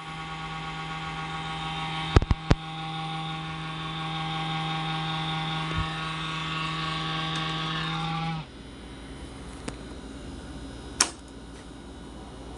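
CoolCold electric fan running with a loud vibrating buzz, a steady hum with a strong low tone: the fan's vibration fault. Three sharp clicks come about two seconds in, and about eight seconds in the loud buzz cuts off suddenly, leaving a quieter hum.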